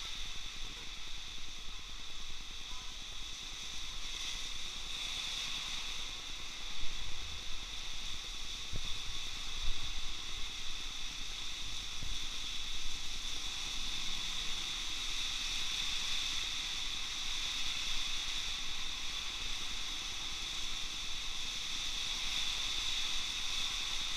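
Typhoon rain falling steadily on a wet street, a continuous hiss, with brief low rumbles about seven and ten seconds in.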